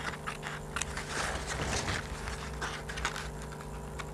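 Scissors cutting through green coloured paper: a string of short snips.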